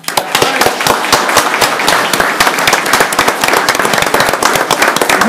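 A room of people applauding: many hands clapping together in a dense, steady patter.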